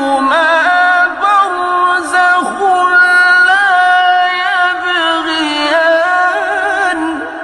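Male voice reciting the Quran in the melodic mujawwad style: long held, ornamented notes with wavering pitch turns, fading near the end.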